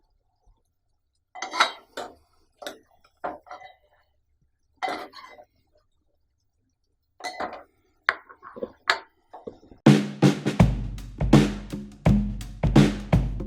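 Utensils clinking against a plate and pan in short, scattered strokes. About ten seconds in, music with a steady drum-kit beat and bass comes in.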